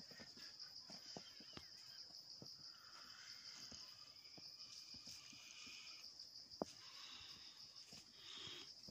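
Faint, steady, high-pitched insect chorus, with scattered faint ticks and one sharper click about two-thirds of the way through.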